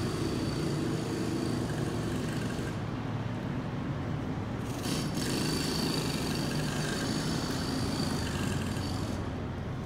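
Steady low rumble of street traffic and vehicle engines, loud enough to be called all that noise.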